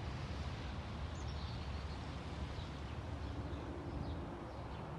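Small birds chirping: a few short, high calls over a steady low rumble of outdoor background noise.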